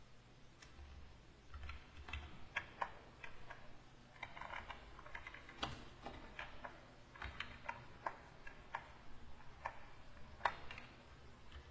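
Irregular light clicking and tapping of a pen-tablet stylus and computer keys during digital painting, some clicks with a soft low thump.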